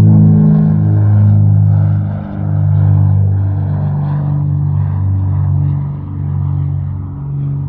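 Propeller aircraft engine droning, a low steady hum whose pitch shifts slightly every second or two, with a rushing noise over it.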